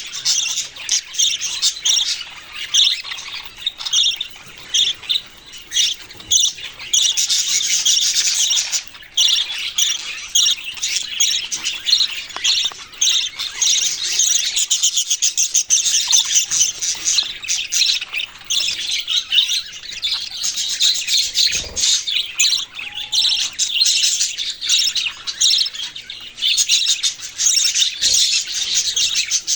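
A flock of small pet parrots chirping and chattering continuously, with many quick overlapping calls and squawks. Two brief low knocks come in the second half.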